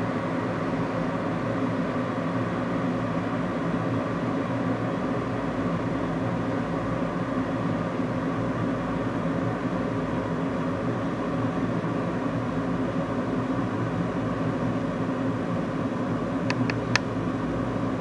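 Polaris PWK 1775CGLD glass electric kettle heating water, a steady rumbling hiss of bubbles forming as the water nears the boil. A couple of short ticks near the end.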